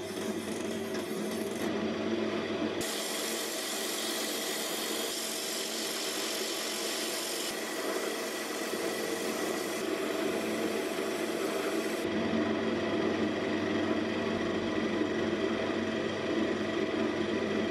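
Wood lathe running steadily while a spinning wood blank is worked by hand: a turning tool scraping across it, sandpaper rubbing on it, and a chisel cutting its end face. The sound changes abruptly a few times, about 3, 7 and 12 seconds in.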